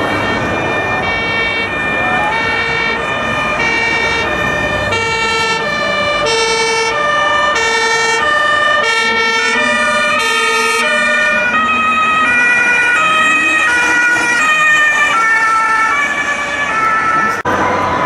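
Emergency vehicle's German two-tone siren (Martinhorn) alternating between a high and a low note, growing somewhat louder toward the latter half as the vehicle approaches, over road traffic noise.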